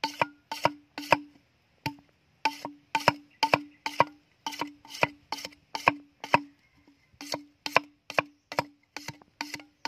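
A machete blade striking down the side of an upright bamboo tube in quick chopping strokes, about three or four a second, chipping away its green outer skin. Each blow rings with a short hollow woody tone. There are brief pauses about one and a half seconds in and about seven seconds in.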